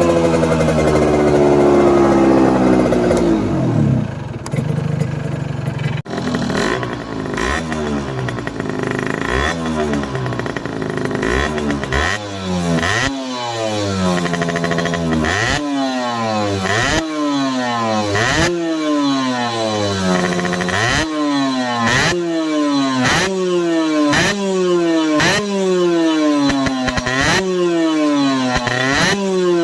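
Gilera CX 125 two-stroke single-cylinder engine, tuned to rev to about 14,000 rpm, being revved. It first falls back from high revs, then from about six seconds in it takes a sharp throttle blip roughly once a second, each rev dropping back toward idle.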